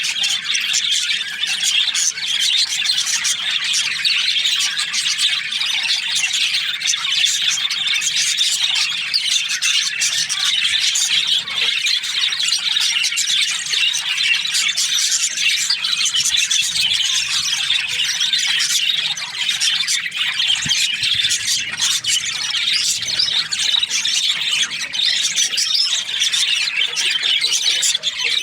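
A flock of budgerigars (budgies) chattering, with many high-pitched chirps and squawks overlapping in a continuous, dense twitter.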